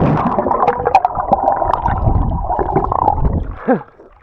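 Creek water gurgling and sloshing right against the microphone while a swimmer is in it, stopping about three and a half seconds in. A short breathy vocal sound follows near the end.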